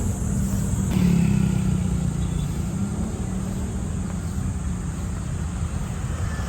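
Street traffic: vehicle engines running steadily, with one vehicle passing close about a second in.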